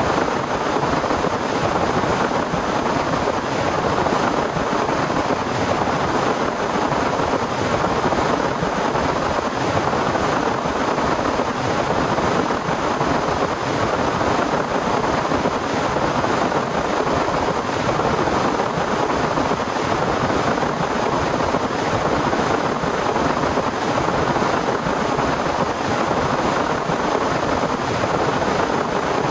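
Heavy rain falling in a steady downpour, an even dense hiss that holds at one level throughout.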